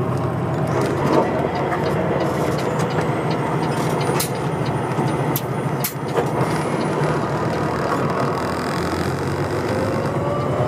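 Semi-truck's diesel engine running steadily under way, heard from inside the cab with road noise and a few light clicks; near the end a rising tone as the truck gathers speed.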